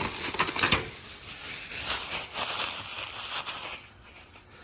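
Rustling and handling noise of items being rummaged through, with a few sharp clicks and knocks in the first second, fading out near the end.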